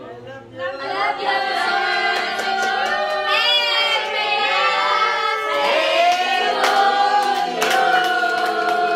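A group of people singing a song together, many voices in unison, starting about a second in, with a few hand claps near the end.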